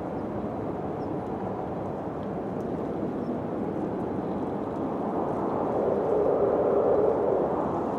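Wind blowing steadily, swelling into a stronger gust about six seconds in, then easing off.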